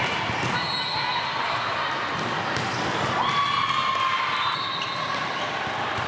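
Volleyball play in a large gym: many short sharp hits and bounces of volleyballs from several courts over a steady din of players' voices, all echoing in the hall.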